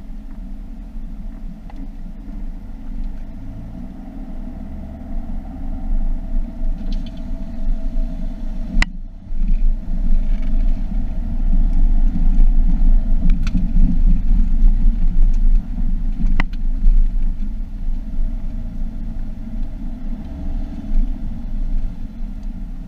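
Car driving, heard from inside the cabin: a steady low rumble of engine and road noise that grows louder about halfway through, with a few sharp knocks.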